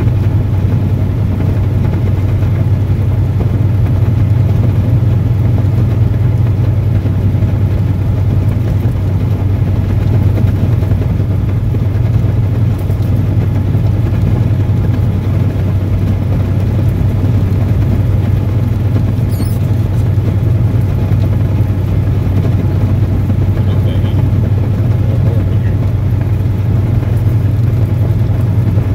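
Diesel semi truck cruising at freeway speed, heard from inside the cab: a steady low engine drone with tyre and road noise from the wet pavement.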